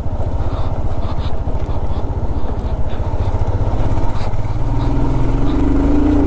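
Motorcycle engine running steadily at low speed on a rough, rocky road. A steady droning tone joins about five seconds in, as a van passes close alongside.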